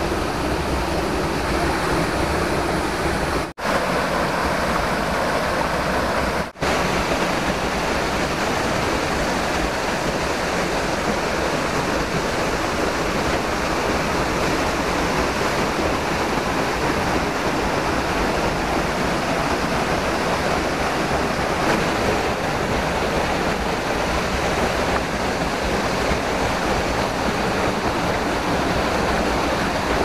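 Steady rush of a small waterfall and its stream pouring over rocks into a shallow pool. It cuts out twice for an instant, about three and six seconds in.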